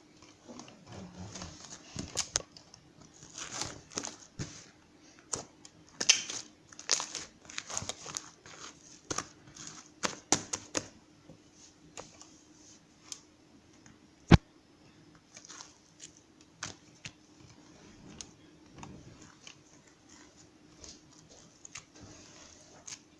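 Irregular crinkling and rustling with scattered clicks and taps, busiest in the first half, and one sharp knock about fourteen seconds in.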